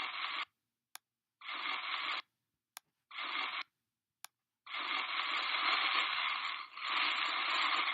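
Scratchy brush sound of a drawing program's paintbrush tool, heard in three short strokes and then one long stroke of about three seconds. Faint clicks fall between the strokes.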